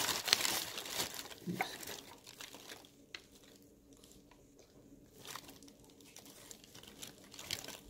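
Brown honeycomb kraft paper packing wrap crinkling and rustling as a small glass jar is unwrapped, loudest in the first second or so, then fainter handling with a few small clicks.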